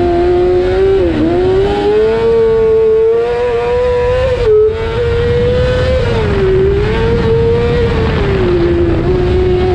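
Cross kart engine running hard, its pitch rising and falling with the throttle through the corners, with a brief cut about four and a half seconds in. A rumble of chassis and track noise runs underneath.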